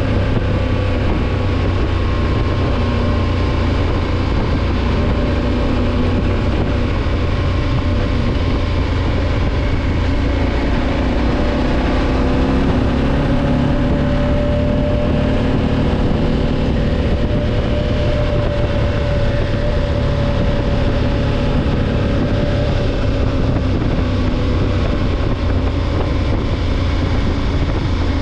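Motorcycle engine running steadily at cruising speed on a gravel track, the engine note drifting gently up and down, under a layer of wind and road noise.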